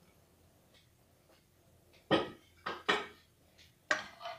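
A spoon knocking against the side of an aluminium pressure-cooker pot while the pressure-cooked mutton curry is stirred to check the meat: a handful of sharp knocks starting about two seconds in.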